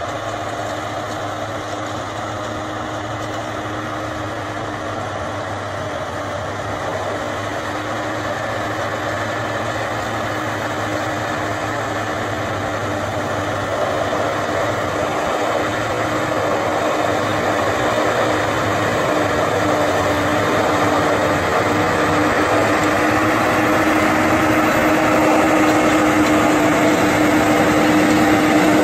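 John Deere 7530 tractor's six-cylinder diesel engine running steadily while it pulls a rotavator through the soil, with a held engine tone over a low hum. It grows steadily louder as the tractor comes closer.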